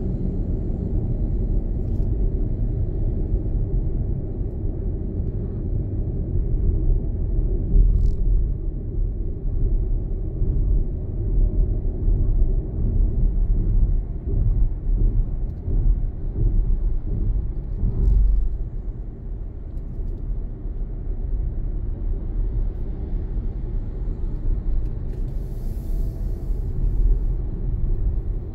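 Steady low rumble of a car driving in city traffic, road and engine noise together, with a couple of faint clicks and a brief hiss near the end.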